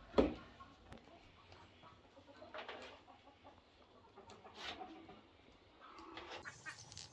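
A metal baking tray knocks sharply as it is pushed into a wood-burning stove's oven, and the oven door is then shut, with chickens clucking now and then.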